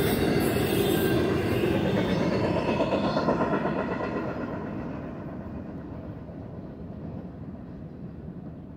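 Double-stack intermodal freight cars rolling over the rails, the wheel rumble and clatter fading steadily as the end of the train moves away, its high end dying out about halfway through.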